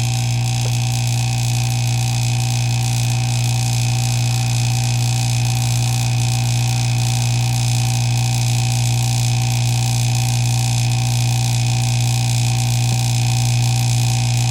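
Oil vacuum pump of a phone-screen vacuum laminating machine running steadily with a loud low hum, holding vacuum during the laminating cycle.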